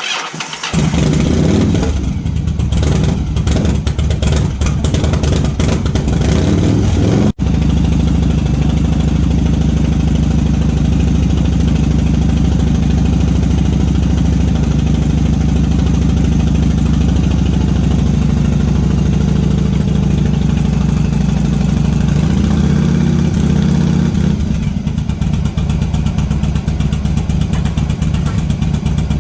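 Yamaha XVS1100 Drag Star's V-twin engine starting up about a second in, then idling steadily.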